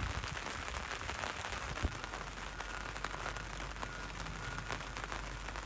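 Steady rain falling: an even hiss full of small drop ticks, with one louder knock about two seconds in.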